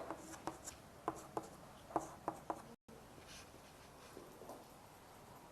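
Faint pen strokes and taps of someone drawing: a run of short scratchy strokes and clicks that stops about halfway through.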